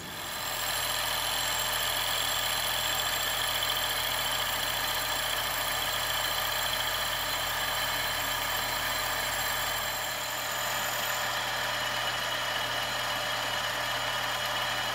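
Metal lathe running steadily, taking a light facing cut across an aluminium propeller plate to skim its face true.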